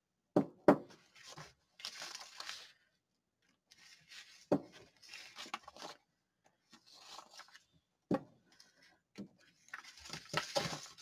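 A stamp on its stamp block knocking down onto a sheet of art paper on a desk several times, with rustling as the paper sheet is slid and turned on the tabletop between the knocks. Two sharp knocks come close together right at the start, then single ones about four and a half and eight seconds in.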